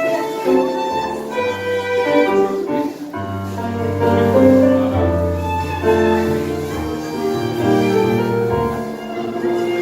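Live tango music played by a small ensemble: violin melody over piano, with sustained bass notes.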